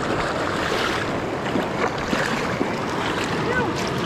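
Steady rush of river water, with a hooked trout splashing at the surface as it is played in to a landing net.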